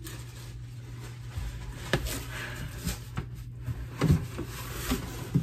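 Cardboard shipping box being handled and its flaps worked open: a sharp knock about two seconds in and dull thumps near the end, over a steady low hum.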